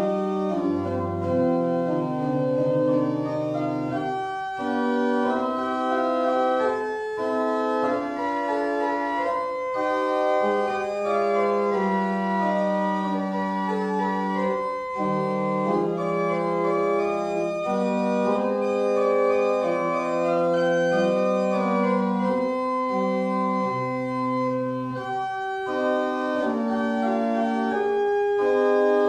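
Church pipe organ playing the closing voluntary after the blessing: sustained chords that move on every second or two over a lower bass line.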